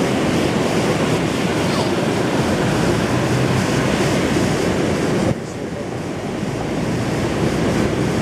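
Ocean surf and wind rushing on the microphone, a dense steady noise that drops suddenly about five seconds in and then slowly builds again.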